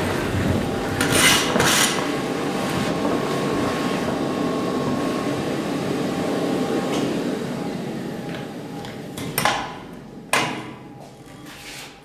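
Wieland textile industrial vacuum cleaner running, sucking clumps of textile fluff through its hose and metal suction tube with a steady hum. About seven seconds in it runs down and fades, and two sharp knocks follow.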